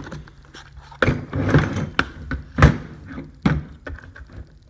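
Metal hand tools knocking and clunking as they are handled and pulled out of a tool bag, with rustling between; about four sharp knocks, the loudest about two and a half seconds in.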